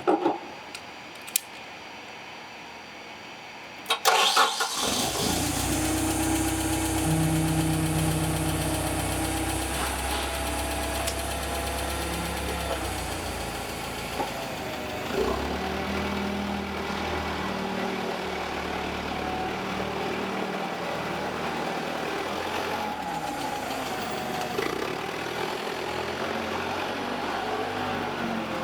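Propane-fuelled CAT/Mitsubishi FG35 forklift engine being started: a couple of clicks, a brief crank about four seconds in, and it catches and idles steadily. From about thirteen seconds its speed rises and falls as the forklift is driven.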